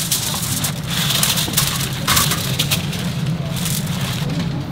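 Food-preparation clatter: irregular crackly rattling and scraping, several short bursts, over a steady low hum.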